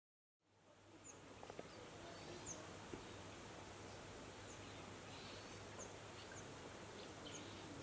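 Faint outdoor woodland ambience fading in: a steady hiss with a low hum under it, and a few short, high chirps scattered every second or so.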